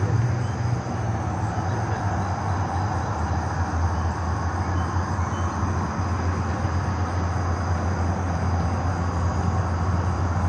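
A steady low rumble with a hiss above it, unchanging throughout.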